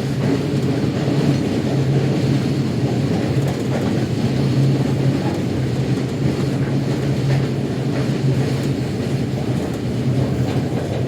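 Steady rumble of a train in motion, heard from inside a passenger carriage, with a strong low hum and faint scattered ticks from the running gear.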